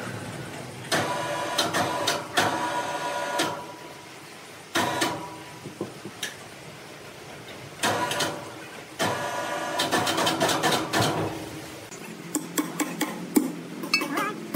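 Several bursts of machinery of a second or two each, with a steady pitch. About twelve seconds in they give way to a quick run of sharp metal taps, a hammer tapping a steel chisel held against a large log.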